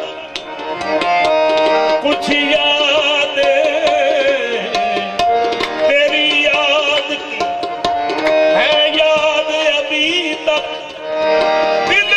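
Qawwali music: a harmonium holding and moving between notes under wavering, melismatic sung lines, with tabla strokes keeping the rhythm.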